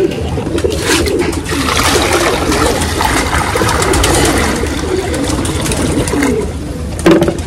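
Water poured from a plastic bucket splashing into a terracotta bowl, starting about a second and a half in and stopping about six seconds in, with pigeons cooing in the background.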